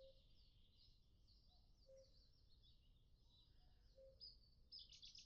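Near silence with faint outdoor birdsong: high twittering throughout and a short, lower note repeating about every two seconds.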